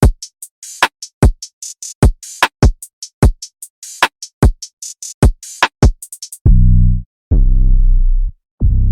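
Trap drum-machine one-shot samples played one after another: punchy kicks with a quick downward pitch drop, mixed with bright snare and clap hits. From about six and a half seconds in come long, deep 808 bass notes, three of them, the last held.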